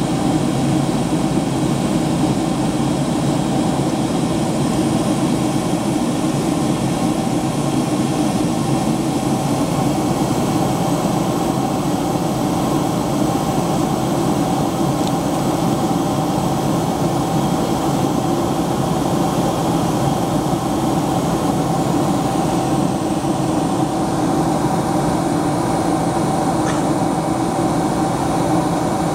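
Steady cabin noise inside a Boeing 767-300ER in flight: jet engine drone and rushing air with a few constant hums.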